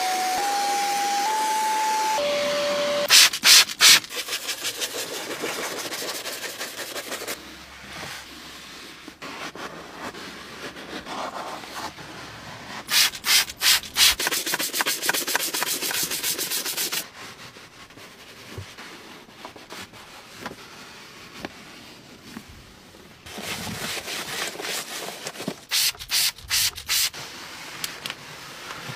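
Car interior cleaning: a vacuum nozzle hissing over the floor carpet, then a trigger spray bottle squirting cleaner in quick groups (three, then four, then several near the end). Between the groups, scrubbing and wiping rub over plastic trim.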